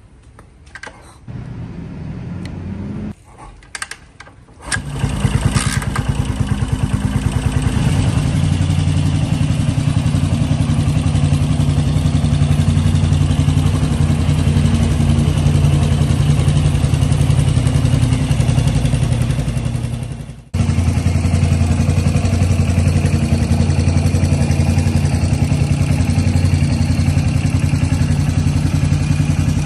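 Kick-starting a 1985 Yamaha SR single-cylinder four-stroke motorcycle: a few short knocks and clatters, then the engine catches about five seconds in and settles into a steady, pulsing idle through its upswept exhaust. The sound drops out for a moment about two-thirds of the way through, then carries on.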